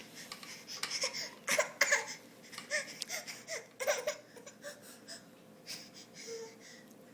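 A baby vocalising in short bursts, fussy sounds and breathy laughs, with gaps between them.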